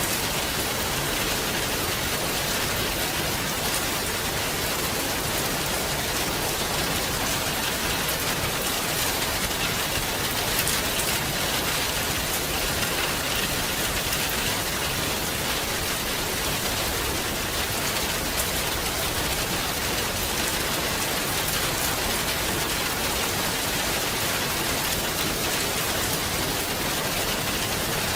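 Steady rain falling, a dense even hiss with fine scattered drop ticks.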